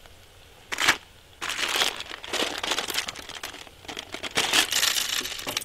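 Plastic packet of dried pasta crinkling as it is handled and opened: a brief crackle just under a second in, then continuous crinkling from about a second and a half on.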